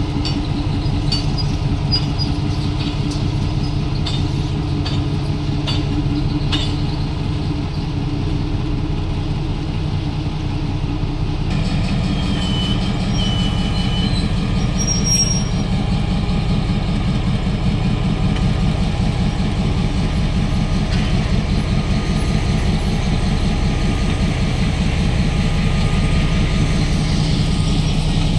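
Diesel locomotive of a ballast work train running with a steady, loud low drone. The engine note shifts abruptly about a third of the way in, followed by a few brief high squeals.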